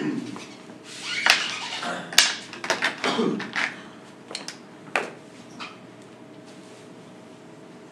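A cluster of sharp clicks and knocks with short rustles in a lecture room, the loudest about a second and two seconds in, a last click about five seconds in. Then only a faint steady hum remains.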